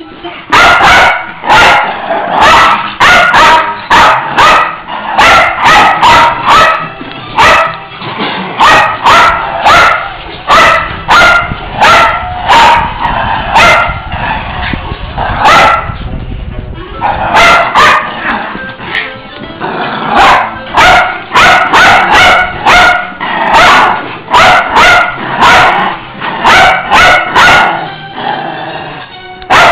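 Small dogs barking over and over in loud, sharp barks, about two a second with a short lull about halfway through, excited by a laser pointer dot they are chasing.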